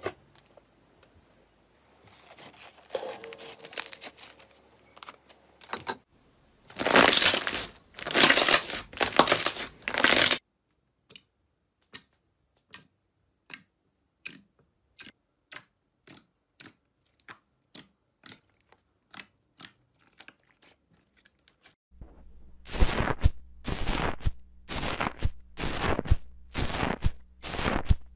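Slime being worked by hand: loud crackling squelches, then a long even run of sharp sticky pops about one and a half a second. Near the end come loud regular crunching strokes at about the same pace as a tool drags through crunchy foam slime.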